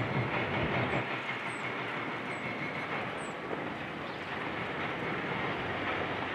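Demolition excavator working: its diesel engine running under a continuous rattling, grinding clatter of broken building material.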